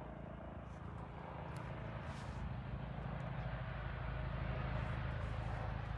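Helicopter flying overhead: a steady low rotor and engine sound with a fast pulsing beat, growing slowly louder as it comes closer.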